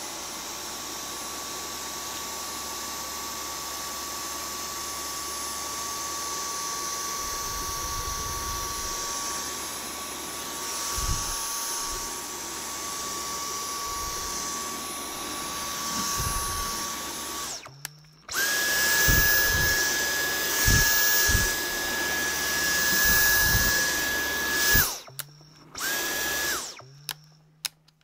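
Dyson V10 Animal cordless stick vacuum running with a steady whine and hiss, with occasional low knocks. About eighteen seconds in it cuts out, then starts again at a higher pitch. It cuts out once more near the end, with one short burst before it stops.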